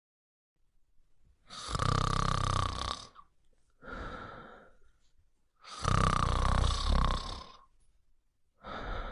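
Snoring, two full breaths: each a loud, rasping in-breath with a deep rumble, followed by a shorter, softer out-breath.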